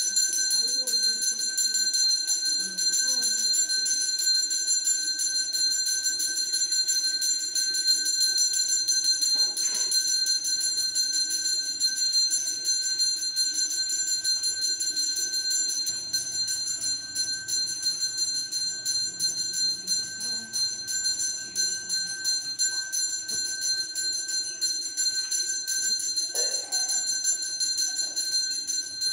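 Puja bell rung rapidly and without a break during the abhishekam, a steady ringing of several high tones.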